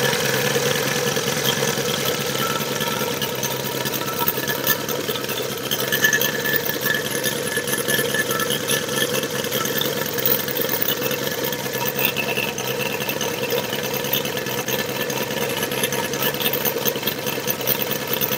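Evolution 260 model-airplane radial engine running at a nice steady idle on a test stand, propeller turning, after sitting unused for years.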